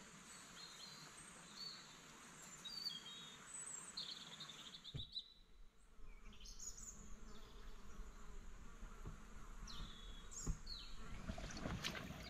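Woodland ambience: small birds chirping over a steady hiss, with a single knock about five seconds in.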